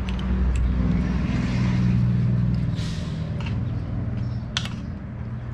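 A motor vehicle's engine running close by, its low hum swelling over the first couple of seconds and then easing off, as of a vehicle passing. Light clicks of a metal spoon and fork against a bowl and plate, one sharper click near the end.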